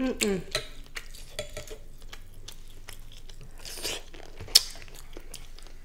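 A person eating a seafood boil by hand: chewing and wet mouth sounds with scattered small clicks, a brief hummed "mm" at the start, and one sharp click about four and a half seconds in.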